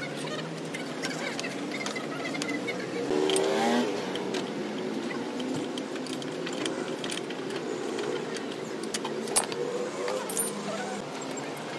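Scattered metallic clinks and taps as a wheel brace works the wheel nuts on a car's front wheel, the two sharpest a little past halfway and about a second later.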